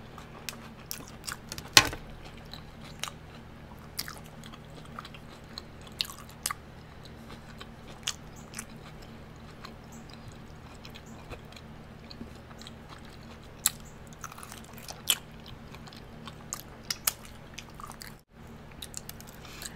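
Close-up chewing and biting of a fried Korean-style mozzarella corn dog and buffalo wings, with scattered crisp crunches and mouth clicks. The loudest crunch comes about two seconds in.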